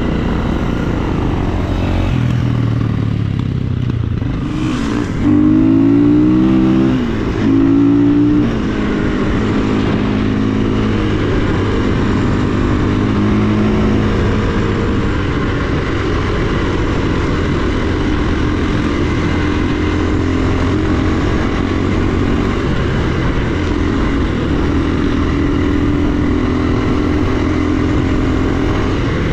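KTM enduro dirt bike engine running, revving up sharply twice about five and seven seconds in, then pulling at a steadier pace.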